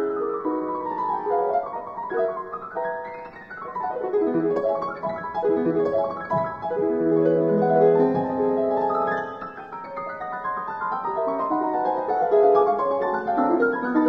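Solo piano music playing flowing runs of notes that rise and fall.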